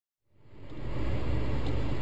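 Steady car engine and road noise picked up by a dashcam inside a moving car, fading in over the first half second.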